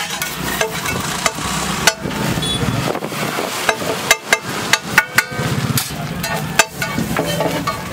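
Metal spatula scraping and clacking against a large flat steel griddle (tawa) as a heap of rice is stirred and tossed, with irregular sharp strikes amid steady scraping.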